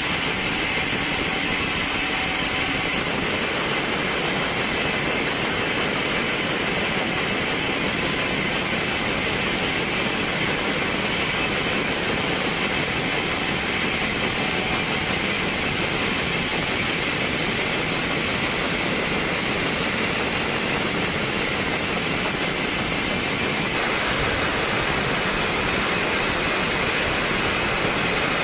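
Sawmill woodworking machinery running steadily, an even mechanical noise with a high steady whine. The sound changes abruptly about 24 seconds in.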